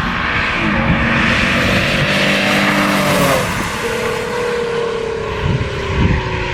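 Lexus sports sedan with an aftermarket exhaust accelerating past: the exhaust note rises, then falls away as the car goes by.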